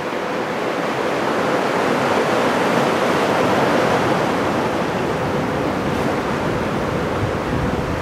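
Big typhoon-swell waves breaking, a steady wash of surf noise that swells a little midway, with wind on the microphone.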